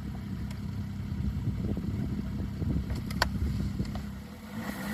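Snowmobile engine running at low revs, in low gear and ready to tow a load. There is a single sharp click about three seconds in.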